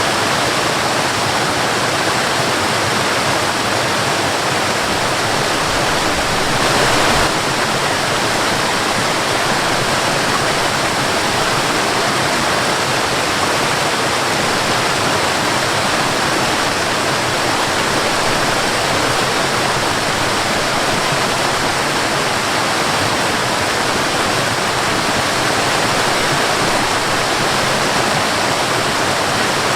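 Waterfall: a steady, loud rush of falling water, with one brief louder swell about seven seconds in.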